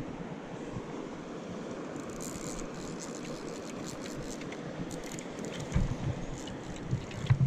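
Steady rush of river water with some wind on the microphone. From about two seconds in come light rustling and clicking handling noises close to the microphone, with a couple of low bumps near the end.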